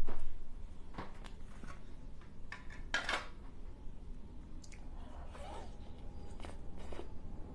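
Scattered light clicks, taps and scrapes of utensils and dishes while a dessert is handled and eaten, with a louder knock at the very start.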